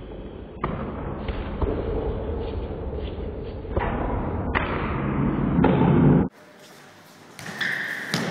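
Muffled, rumbling noise of an indoor futsal game with thuds of the ball, in several short spliced clips that start and stop abruptly.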